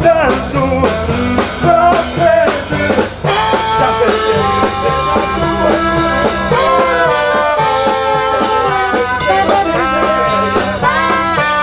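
Live band playing an upbeat song on drum kit and guitar, with a melody line over the top that shifts to longer held notes about three seconds in.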